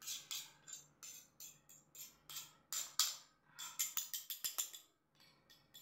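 Metal fork and spoon clinking and scraping as rice and noodles are tossed and mixed on a ceramic plate: a quick, irregular run of short, light clicks.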